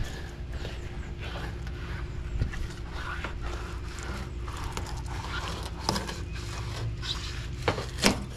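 Fillet knife worked back and forth through a black drum fillet, scraping along the bones, with a few sharp clicks near the end.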